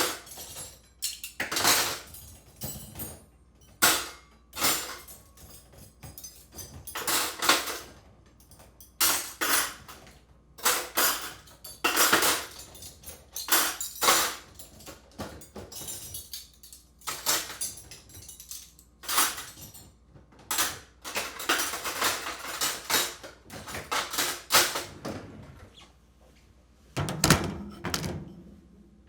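Dishes and cutlery being unloaded from a dishwasher: a steady series of clinks, clatters and knocks as plates, glasses and utensils are lifted out and set down, with a few heavier thuds near the end.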